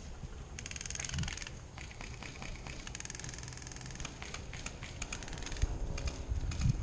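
Airsoft guns firing several rapid bursts of clattering shots, with short pauses between bursts. A few low thumps come near the end.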